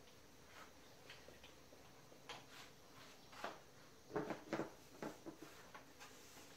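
Whiteboard eraser rubbing across a whiteboard in short wiping strokes, with faint scrapes and ticks; a cluster of louder soft knocks and handling noises comes about four seconds in.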